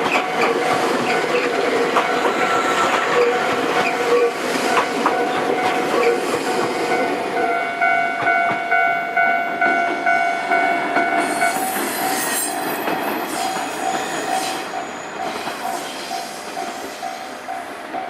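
A train passing a level crossing on the JR Wakayama Line, its running noise dense and loud, while the crossing's warning bell rings on in repeated strokes. A high steady whine sounds for about four seconds midway, and the train noise fades away over the last few seconds as the bell keeps ringing.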